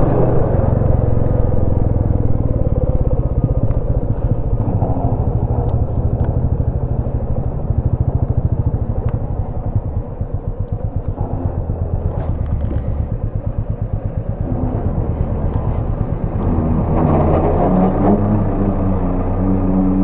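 Motorcycle engine running while the bike is ridden along, easing off and quieter about halfway through, then pulling harder and louder again near the end.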